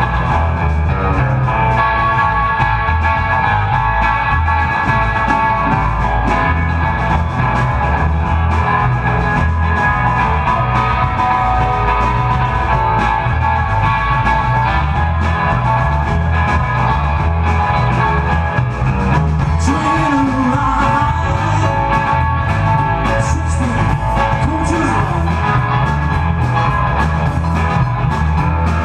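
Live blues band playing an up-tempo rock-and-roll number on electric guitar, bass guitar, drum kit and keyboard, with a steady driving beat.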